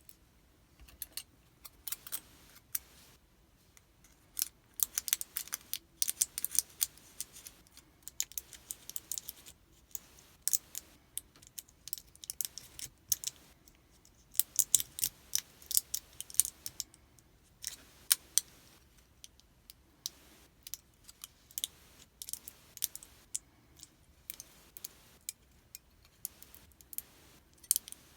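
Irregular sharp metallic clicks and small scrapes from a pin-tumbler lock and small metal lockpicking tools being handled at a workbench. They come in clusters with short pauses between them.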